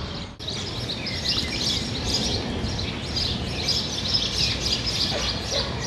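Many small birds chirping continuously, over a low steady background rumble.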